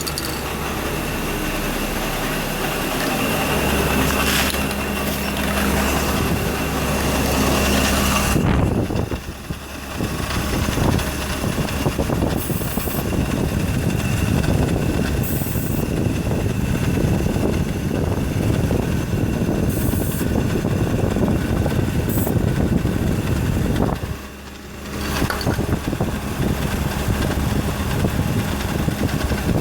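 BMW E36 328i's straight-six engine idling steadily, heard up close. The sound turns rougher about eight seconds in and drops away briefly twice, about nine seconds in and again near twenty-five seconds.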